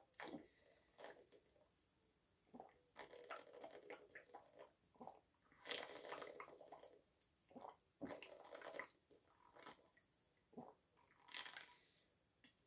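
A person gulping down water from an upturned plastic bottle: faint, irregular swallows and mouth sounds.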